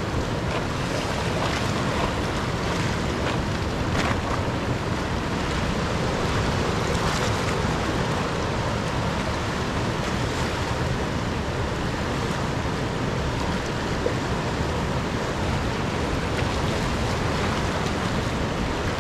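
River water rushing in a steady, unbroken noise.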